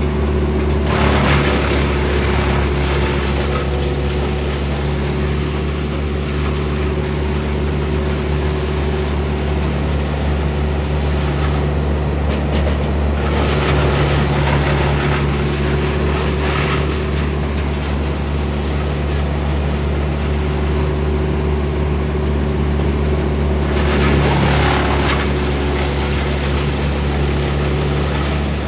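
An engine running steadily at an even speed, with several short bursts of rough, hissing noise over it: about a second in, a longer spell from about halfway, and again near the end.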